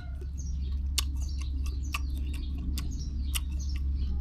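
Short, high, falling bird chirps over a steady low rumble, with sharp irregular clicks scattered through them.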